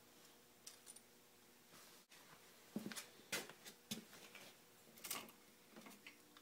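Faint, scattered clicks and light knocks of hands handling parts on a Honda 300 ATV engine's cylinder top while the head gasket is set over the dowels. There are a handful of short taps, the loudest a little past the middle and about five seconds in.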